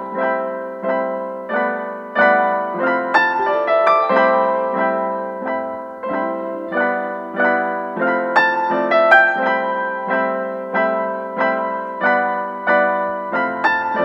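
Background piano music: notes and chords struck every half second or so, each ringing out and fading.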